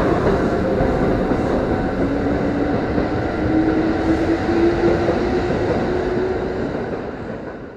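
Kintetsu limited-express train running past close to the platform: a loud rush of wheel and running noise, with a motor whine that slowly rises in pitch. It fades away over the last second as the train leaves.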